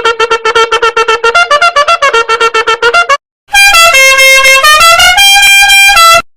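Two meme sound-effect clips played back to back, both a brassy horn sound. First a rapid stutter of horn notes, about seven a second, holding one pitch and then wandering. After a brief gap comes a loud, harsh horn tune of held notes stepping up and down in pitch, which cuts off suddenly.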